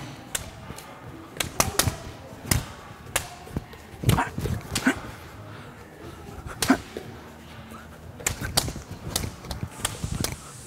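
Bare-fist punches snapping a hand-held sheet of paper: a quick, uneven string of sharp cracks, some in fast pairs and triples.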